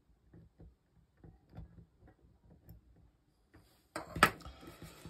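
Faint, irregular small clicks of a tool and component leads working into a solderless breadboard. About four seconds in comes one loud knock, followed by brief rustling handling noise.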